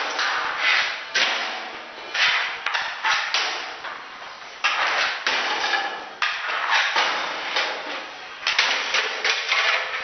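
Hockey pucks shot with sticks cracking and banging into a microwave oven and onto the hard floor in an irregular run of sharp impacts, about one or two a second, each with a short echoing ring-out. The barrage knocks the microwave's door off.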